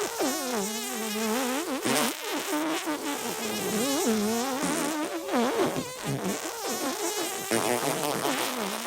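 Comic fart sounds: a continuous run of buzzy, wobbling pitched tones that keep bending up and down.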